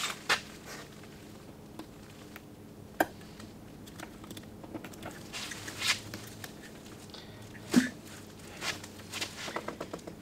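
Hand-handling noise from a Willys MB windshield as the glass and its rubber seal are worked into the metal frame: scattered small clicks and knocks, with one sharper knock a little before the end, then a quick run of light ticks.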